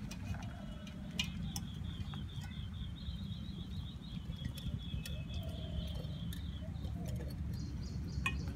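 A small bird trilling a fast, even run of high chirps from about a second in until near the end, over a steady low rumble. Scattered light clicks and taps come from puppies eating rice out of a steel bowl.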